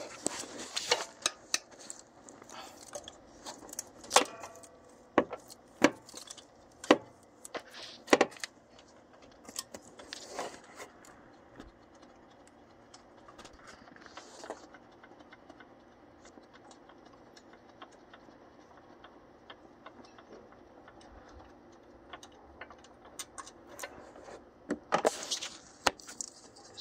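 Metal hand tools clinking and clattering as they are handled and set down: a run of sharp clinks and knocks, a quiet stretch in the middle, then another cluster of clinks near the end.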